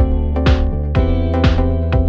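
Electronic background music with a steady beat, sustained synth tones and a hissy hit about once a second.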